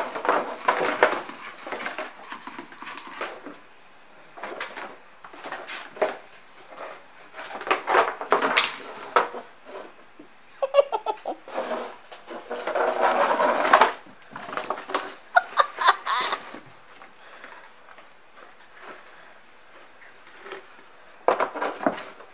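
A cardboard box scraping and rattling on a tile floor as cats wrestle and pounce on it, in irregular bursts of knocks and scuffs with quieter pauses between.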